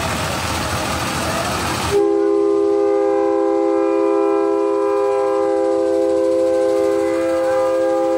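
Multi-tone train-style horn on a replica steam-locomotive parade float, sounding one long steady chord that starts about two seconds in and is still sounding at the end. Before it, a haze of street and crowd noise.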